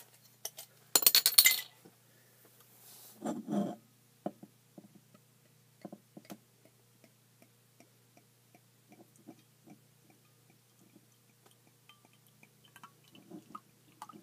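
Glass clinks: a sharp clink, then a loud rattling run of glassy clinks about a second in. After that, faint small ticks and soft sounds as beer is poured slowly from a glass bottle into a tilted stemmed glass.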